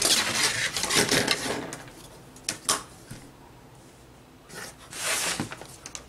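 Hands and drafting rulers sliding over large sheets of pattern paper on a table, with a long scraping rustle at the start, two light knocks about two and a half seconds in, and another short rustle near the end.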